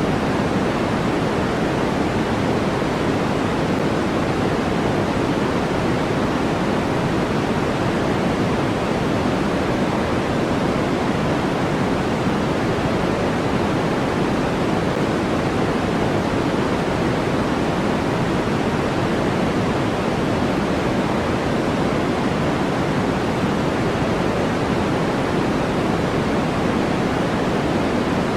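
Steady electronically generated noise from a sleep-aid track, an even hiss that never changes. Most of its energy sits in the low-mids and it thins out toward the highs, closer to pink noise than flat white noise.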